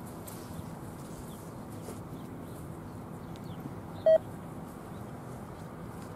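Steady low rumble of a ballast cleaner train approaching in the distance, with faint bird chirps. About four seconds in, one short, loud beep.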